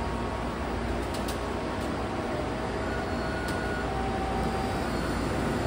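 Steady hum of a Taipei Metro C371 train standing at an underground platform with its doors open, with two faint short tones midway, a higher one followed by a lower one.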